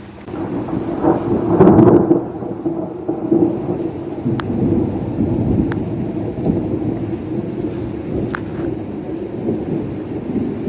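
Thunder rolls in right at the start, loudest about two seconds in, then rumbles on steadily under falling rain. A few sharp ticks of raindrops sound close by.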